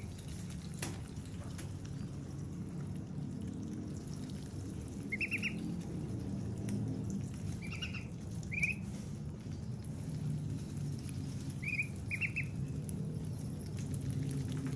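Young white ducks pecking at a wedge of watermelon, with a handful of short high peeping calls from about five seconds in. A steady low hum runs underneath.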